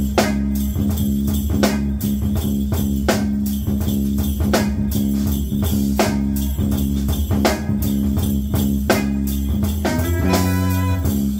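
Live jazz band playing: drum kit, electric bass, electric guitar and a hand-shaken percussion instrument keeping a steady groove. About ten seconds in, an alto saxophone comes in with a melodic line.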